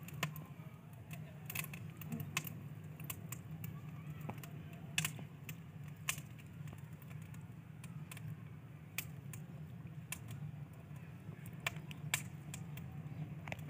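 Scattered light clicks and clinks of metal skewers knocking against each other and a plate while raw chicken leg pieces are threaded onto them, over a steady low hum.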